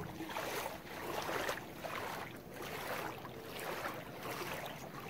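Footsteps wading through shallow floodwater, a soft swish and splash about once a second.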